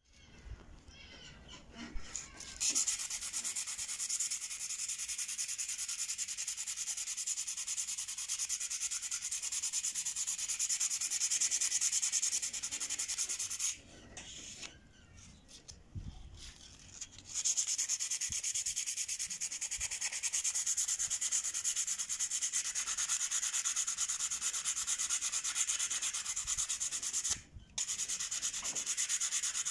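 Sandpaper rubbed back and forth by hand along a rusty steel knife blade, scraping off the rust. The rubbing stops for a few seconds around the middle and again briefly near the end.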